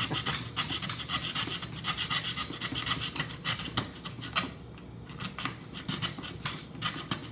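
Rapid back-and-forth rasping strokes of a hand tool cutting or filing, broken by a short quieter pause about four and a half seconds in.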